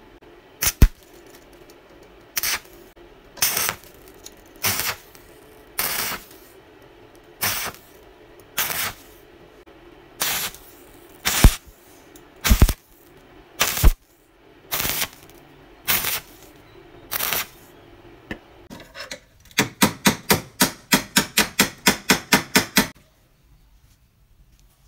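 Stick welder arc crackling in about fifteen short bursts, roughly one a second, as the electrode is struck and broken off again and again to lay tack welds, over a steady hum. Near the end a chipping hammer taps the slag off the weld in a fast even run, about five blows a second.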